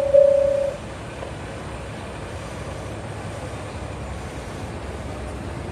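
Diesel railcar engine running with a steady low rumble (Aizu Railway AT-500 series). At the very start a bell tone rings about once every 0.6 s and stops less than a second in.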